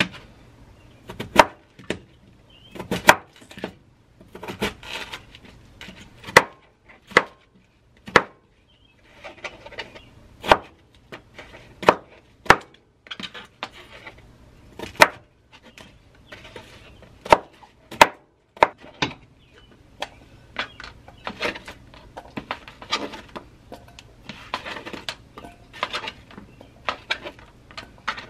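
A knife slicing a peeled potato on a plastic cutting board: the blade knocks sharply on the board at an irregular pace, roughly once a second.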